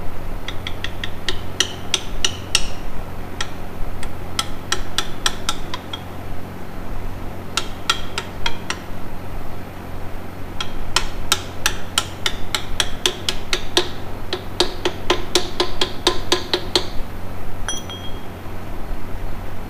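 Ball-peen hammer striking steel in quick runs of taps, about four a second, each with a brief metallic ring, driving a new bushing into the steering spindle housing of a Case 1570 tractor's front axle.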